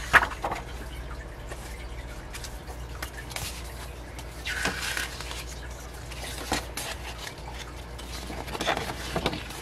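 Paper and card being handled: album inserts slid and set down with light taps and rustles, a sharp tap right at the start, and photobook pages riffled near the end.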